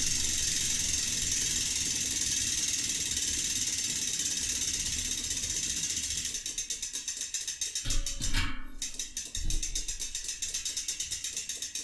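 Bicycle rear wheel spinning freely on its hub, its freewheel pawls ticking rapidly and then slowing to a few clicks a second as the wheel coasts down. About 8 s in there is a thump as a hand meets the rim, the clicking breaks off briefly, then picks up again as the wheel is spun on.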